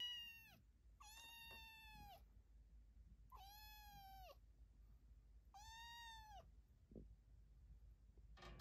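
A kitten meowing: four high-pitched meows, each up to about a second long, spaced a second or two apart.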